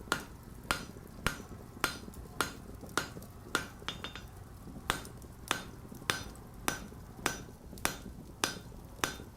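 Sharp taps in a steady, even rhythm, a little under two a second, over a low steady hum.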